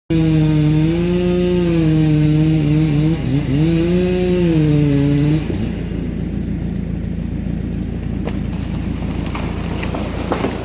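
Two-stroke chainsaw running at high revs, its pitch sagging and recovering as it cuts, with a brief dip about three seconds in. The saw stops about five and a half seconds in, leaving a lower, steady engine rumble.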